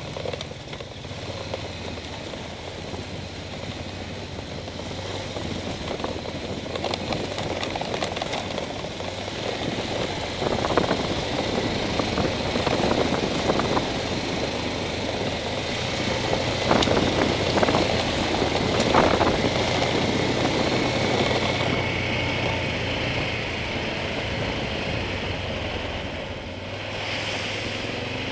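Engine of a small off-road vehicle running steadily as it rolls down a steep, rough gravel road, with tyre noise and knocks and rattles over bumps. These are loudest between about ten and twenty seconds in.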